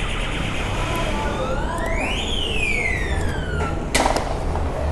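A single siren-like wail that rises steeply in pitch for about a second, then falls more slowly, followed by a sharp knock about four seconds in.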